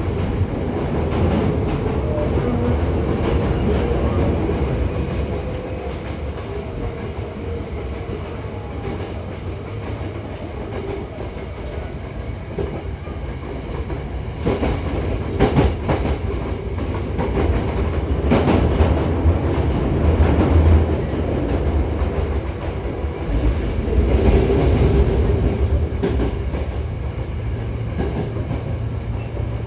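Hankyu 8000-series electric train running, heard from inside the car: a steady low rumble with wheels clacking over rail joints, the loudest clacks coming in clusters about halfway through and later.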